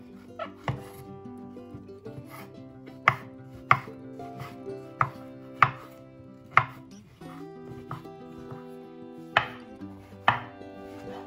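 Kitchen knife chopping button mushrooms on a wooden cutting board: a slow, uneven run of sharp knocks as the blade goes through each slice and strikes the board, with a gap in the knocks a little past the middle.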